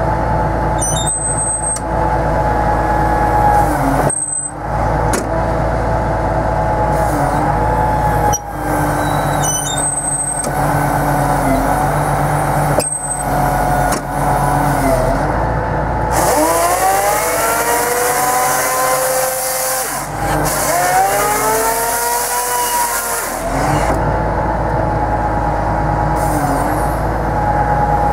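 Tractor engine and hydraulic system working a forestry felling grapple head: a steady engine hum whose pitch dips briefly every few seconds as the hydraulic functions take load, and between about 16 and 23 seconds it revs up and falls back twice, with a hiss.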